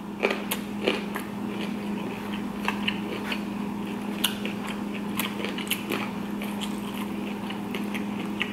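Close-miked chewing, with many short wet clicks and smacks of the mouth as a man eats broccoli and fried rice, and a plastic fork now and then scraping and tapping in a foam takeout box.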